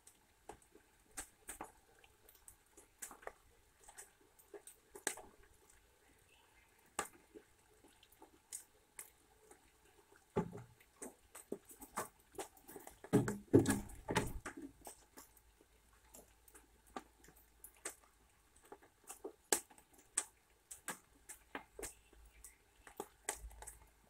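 Eurasian red squirrel cracking and chewing sunflower seeds, a run of irregular sharp clicks as the shells split. Louder thumps and rustling come about halfway through.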